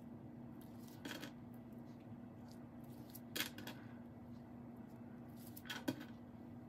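Faint scattered clicks of small glass fire stones being picked up and tapped into wet epoxy, a few taps seconds apart, over a steady low hum.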